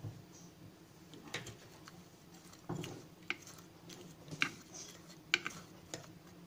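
A white spoon knocking lightly against a small bowl: a handful of sharp clicks and taps at irregular intervals, over a faint steady low hum.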